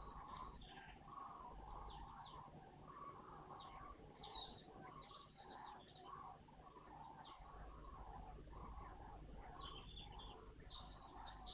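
Faint, busy chirping of small garden birds: many short call notes in quick, irregular succession.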